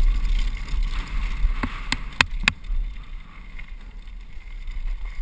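Wind buffeting the microphone and dull trail rumble from a mountain bike descending a dirt singletrack at speed, with a few sharp knocks about two seconds in as the bike clatters over bumps.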